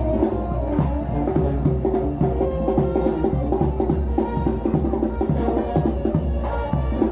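New Orleans-style brass band music: a steady sousaphone bass line under trombone and trumpet notes, with regular bass and snare drum beats.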